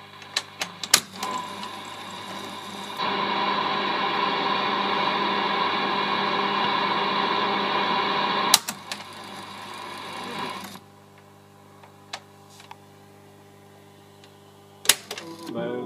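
Motorized station tuner of a Marconi 1200 tube radio in action. A few sharp clicks, then about five seconds of loud, steady mechanical whirring as the motor turns the tuning capacitor, ending in a sharp click. Softer noise and then a low steady hum follow, with another click near the end.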